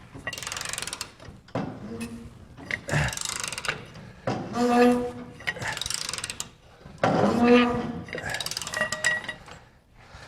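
Hand ratchet being worked in repeated strokes of about a second each, clicking rapidly, as it unscrews a seized, heated threaded spring shackle on a 1946 Willys CJ2A; twice, about halfway through and near the end, the turning metal squeaks.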